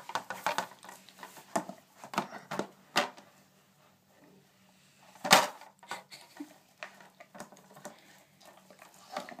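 Plastic dog treat-puzzle disc clattering and knocking as an Airedale terrier noses and paws at its covers while sniffing for treats. There is a run of small clicks at the start and one sharp, louder knock about five seconds in.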